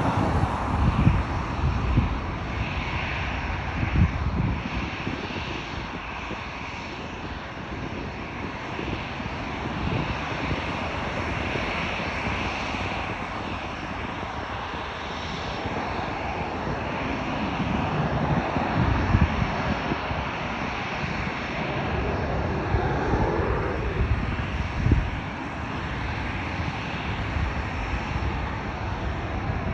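Jet engines of an Airbus A330-900neo (Rolls-Royce Trent 7000s) running steadily, a dense rushing roar with occasional low swells.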